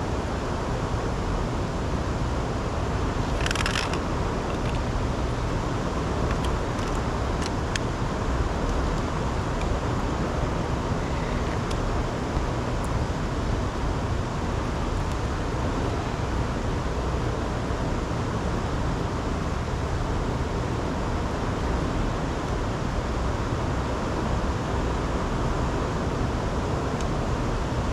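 Steady rushing noise without any pitch, with a short rattle about three and a half seconds in and a few light clicks.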